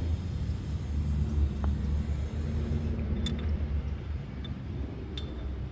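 Steady low engine-like rumble, with a few light metallic clinks in the second half.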